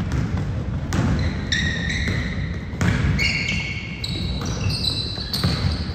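A basketball being dribbled on a hardwood gym floor, sharp bounces about a second apart, with rubber-soled sneakers squeaking on the floor through the middle and end over the low rumble of the hall.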